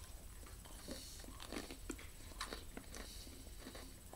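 People chewing Oreo sandwich cookies, faint crunching with scattered small crackles and clicks.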